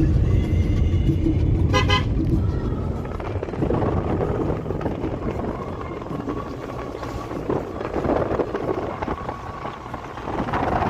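Engine and road rumble of a vehicle driving along a country road, with a horn tooting during the first two seconds. After about three seconds the rumble eases into a quieter running hum.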